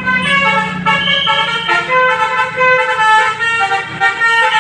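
Basuri telolet bus horn playing a quick melody of short notes that step up and down in pitch, the multi-tone musical horn of an Indonesian bus, with a low engine hum under the first second.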